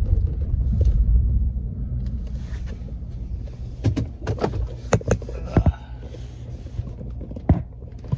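Low rumble inside a parked car's cabin, strongest at first and then easing, with a run of sharp clicks and knocks a few seconds in and one more sharp knock near the end.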